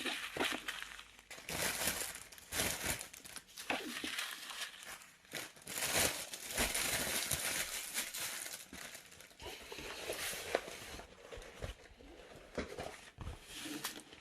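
Plastic packaging of a diamond painting kit crinkling and rustling in irregular bursts as it is handled.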